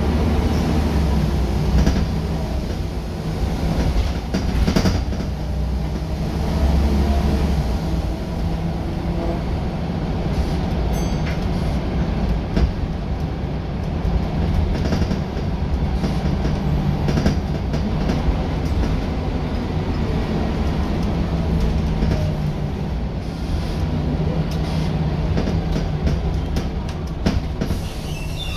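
Scania L94UB single-deck bus heard from inside the saloon while on the move: its diesel engine drones steadily, the note shifting up and down several times, over road rumble with occasional knocks and rattles from the body and fittings.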